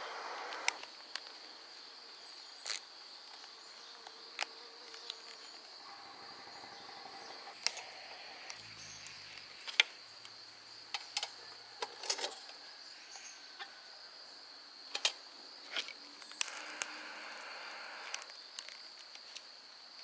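Insects trilling steadily on one high pitch, with scattered sharp clicks and taps.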